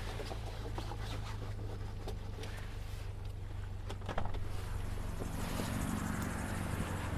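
Car engine running with a steady low hum, heard from inside the cabin as the car rolls slowly, with a few scattered light clicks and knocks. The road and engine noise grows somewhat about five seconds in.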